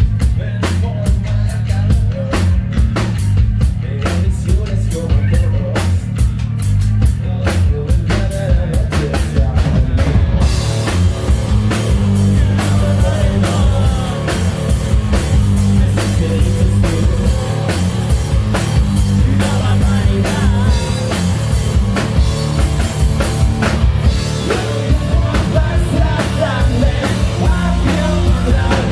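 Melodic hard rock band playing live, loud: drums and bass with thin upper sound for about the first ten seconds, then the full band with cymbals and guitars crashes in and carries on.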